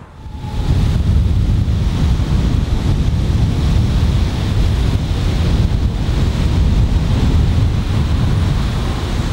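Wind buffeting the microphone: a loud, uneven low rumble that sets in about half a second in.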